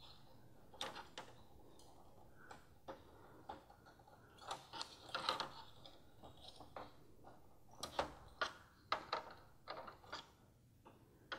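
Faint, irregular clicks and small plastic snaps as a screwdriver pries the retaining tabs of a plastic Audi rings emblem loose from the back of a plastic grille.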